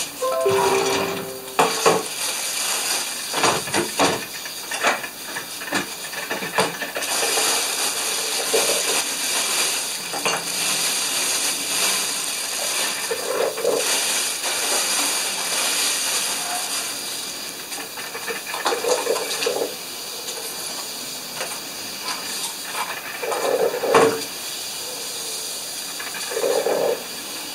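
Kitchen clatter of dishes, cutlery and a drawer, with knocks and clinks scattered throughout, over the steady hiss and gurgle of a drip coffee maker brewing.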